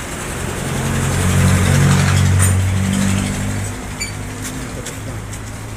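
Motorcycle engine running and revved, swelling louder for about three seconds, then settling back to a steady idle.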